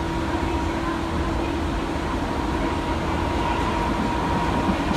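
Seibu Tamagawa Line electric train running, heard from inside the car: a steady rumble with a steady high hum, and a lower hum that fades out about two seconds in.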